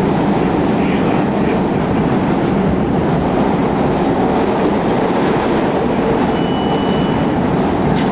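CTA Blue Line rapid-transit train running along the elevated track, heard from inside the car as a loud, steady rumble. A thin, high, steady tone sounds briefly about six seconds in.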